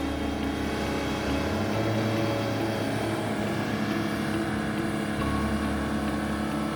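Bulldozer's diesel engine running steadily under load, its low note shifting about a second and a half in and again near five seconds.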